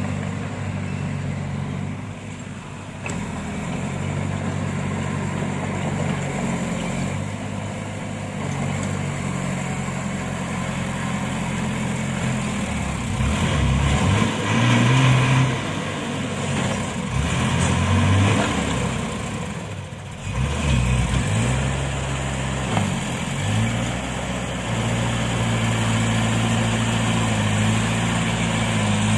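Diesel engines of a mud-stuck dump truck and a small crawler bulldozer running steadily. In the middle they rev up and down several times, louder, as the dozer comes up behind the truck to push it out of the mud.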